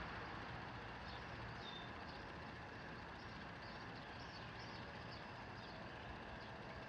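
Faint steady background hiss with small birds chirping softly, many short high chirps scattered throughout.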